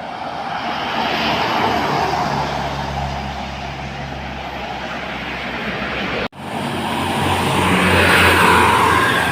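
Large diesel vehicles, most likely tour buses, passing close by on the road: a low engine drone with tyre and road noise that breaks off suddenly about six seconds in and then swells as another vehicle approaches.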